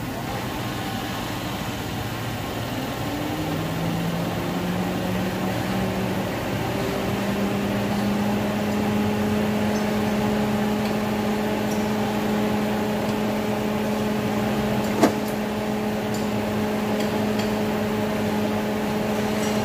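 Ford Grand Marquis V8 engine idling with a steady hum; a few seconds in, its pitch rises a little and settles higher. A single sharp click comes about fifteen seconds in.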